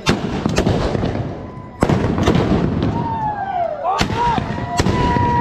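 Muzzle-loading guns firing, about six sharp bangs at irregular intervals, over a background of crowd voices. A wavering, gliding tone sounds in the second half.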